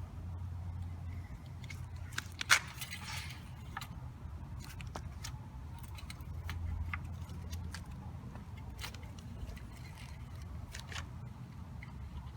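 Light clicks and scrapes of an engine oil dipstick being drawn out of its tube, wiped and pushed back in, with one sharp click about two and a half seconds in. A low steady hum lies underneath.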